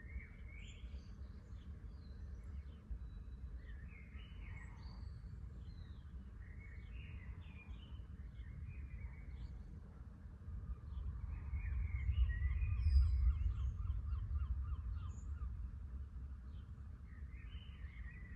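Birds calling in short chirps through the dawn, over a steady low outdoor rumble. About eleven seconds in, a low rumble of distant thunder swells, peaks and fades away over several seconds.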